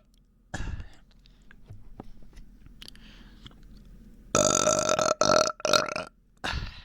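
A person burping: one short burp just after half a second in, then a run of loud burps back to back about four seconds in, and a last one near the end. The burps come from a bloated, upset stomach.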